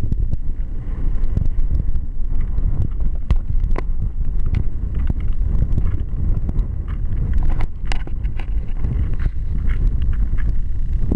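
Wind buffeting the camera microphone in a constant low rumble, with many short crackles and clicks scattered through it.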